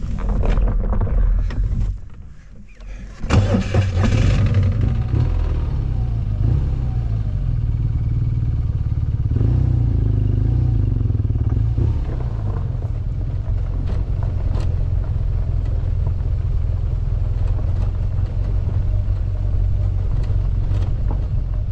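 BMW R1200GS flat-twin boxer engine starting about three seconds in, after a short burst of noise, then running steadily as the motorcycle moves off slowly.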